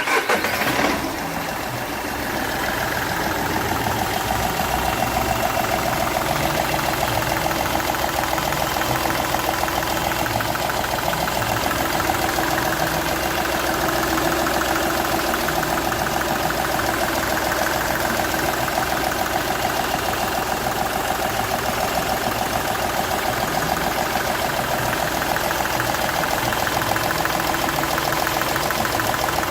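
Seat Ibiza's 1.2 TDI three-cylinder diesel engine idling steadily. Its first cylinder is losing compression past a burnt injector seal.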